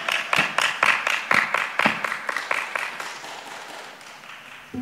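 Audience clapping in unison to a steady beat, about four claps a second, dying away over the first three seconds or so.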